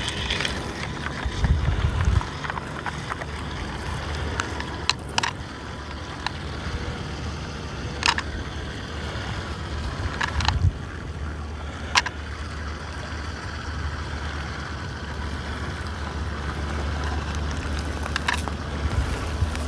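Mini amphibious RC car running on lake water: a small electric motor whine with its paddle wheels churning the water, over a low steady rumble. A few sharp clicks are scattered through it.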